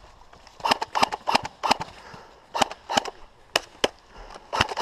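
Airsoft replicas firing single shots: about ten sharp cracks at irregular intervals, some in quick pairs.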